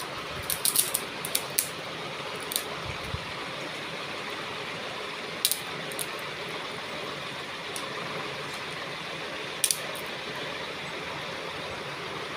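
A strand of stone beads clicking and rattling against a magnet block and the tabletop as it is handled. The clicks come in a quick cluster near the start, then as single clicks a few seconds apart, over a steady background hiss.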